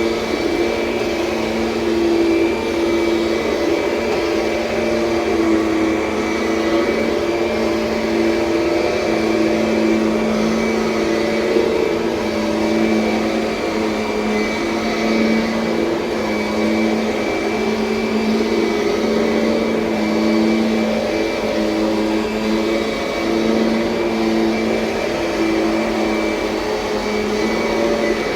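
A 2007 Kirby Sentria upright vacuum cleaner running steadily. Its motor drones with a slight waver in pitch.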